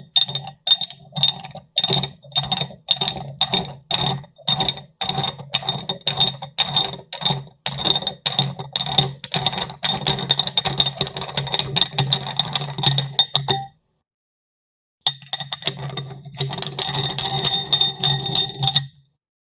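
Metal gym weights clanking together in a steady rhythm, about two ringing clinks a second. After a pause of about a second and a half comes a faster, denser run of clinking.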